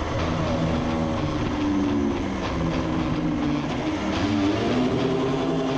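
1972 Ossa Pioneer 250's single-cylinder two-stroke engine running under way on a test ride, its pitch rising and falling as the throttle changes.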